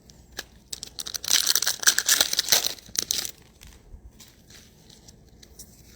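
Foil trading-card pack wrapper crinkling and tearing as it is ripped open, a dense crackle lasting about two and a half seconds, followed by a few faint clicks of cards being handled.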